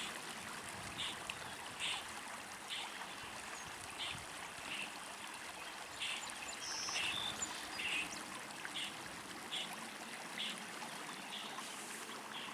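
River water flowing steadily, with short high-pitched notes repeating about once a second over it.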